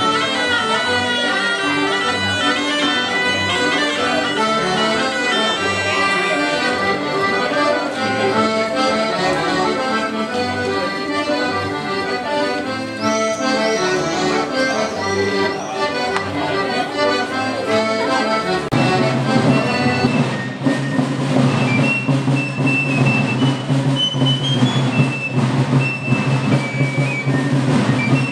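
Accordion-led traditional folk dance music. About two-thirds of the way through, the music changes to a steady low drone under a shrill high melody.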